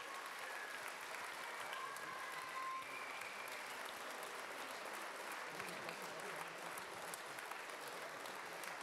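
Audience applauding steadily, a dense patter of many hands clapping, with a few short high calls over it in the first three seconds.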